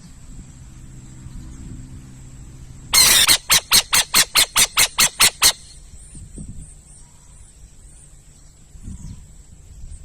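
Owl calling with a harsh, screechy cry: one longer burst, then about ten short rapid screeches at roughly four a second, stopping after a couple of seconds.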